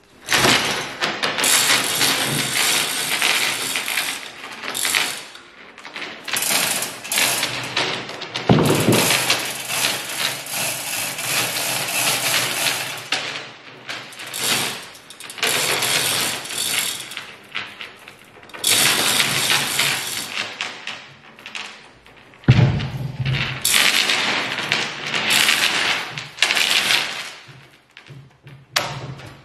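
Manual chain hoists being hauled by hand, the chains rattling through the hoists in spells of a few seconds with short pauses, as a fibreglass boat hull is lifted out of its mould. There is a louder knock about twenty-two seconds in.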